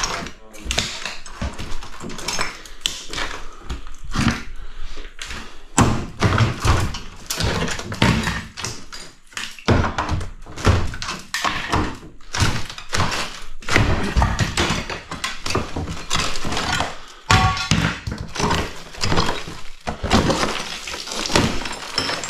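Fast, irregular run of hammer blows knocking ceramic tiles and wall sheeting off a steel-stud shower wall, with broken tile and board cracking and clattering down.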